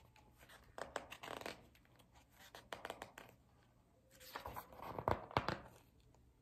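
Paper pages of a hardcover picture book being fingered apart and turned: rustling and scraping in three bursts, the last and loudest near the end with a few sharp clicks.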